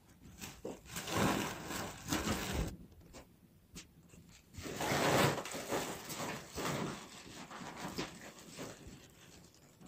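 Woven plastic flour sack rustling and crinkling as flour is scooped out of it with a small metal bowl and tipped into a large metal basin. There are two spells of rustling, about a second in and again about five seconds in, with a few light knocks and scrapes between them.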